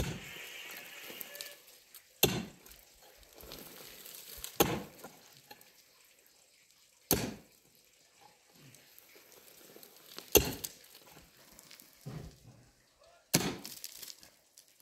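A series of six sharp knocks, two to three seconds apart, a few of them trailing off briefly.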